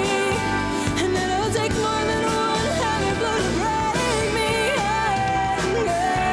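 Pop song with a sung melody over a steady backing beat.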